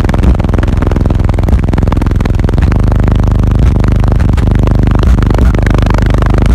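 Bass-heavy music played loud through a car audio system of eight Wolfram Audio PT-18 subwoofers in a 6th-order enclosure, the bass heavier from about two and a half seconds in. The phone microphone is overloaded, so the sound comes through distorted.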